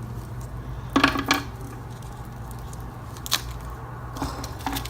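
Starburst candies and their wrappers being handled: a few short clicks and crinkles, a cluster about a second in and single ones later, over a steady low hum.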